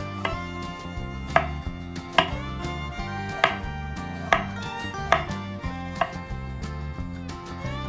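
Knife chopping food on a cutting board, with about seven separate sharp strokes roughly a second apart, over steady background music.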